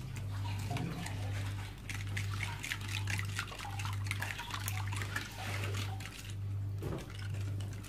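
Hand whisk beating a runny mixture of eggs, sugar, milk, oil and yogurt in a glass bowl: rapid sloshing and splashing with quick clicks of the whisk. A low hum that swells and dips about once a second runs underneath.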